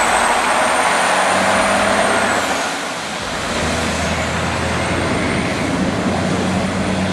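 Heavy forestry machine running under load: a steady diesel engine hum beneath a dense rushing noise. A faint high whine rises, holds and falls away about three seconds in, then rises again.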